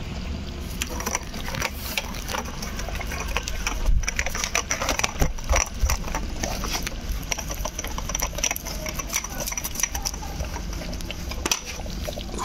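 Wood fire crackling in a clay chulha stove while chicken curry simmers and bubbles in the clay pot on top: a dense run of small rapid clicks and pops with a faint steady high hiss.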